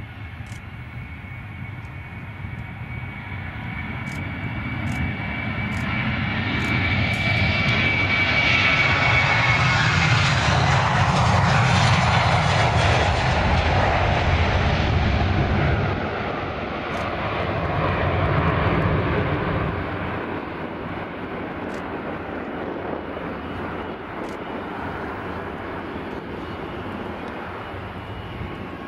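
Boeing 737 jet engines at takeoff thrust, growing louder as the airliner rolls down the runway and lifts off, then fading as it climbs away. A high whine slides down in pitch as it passes.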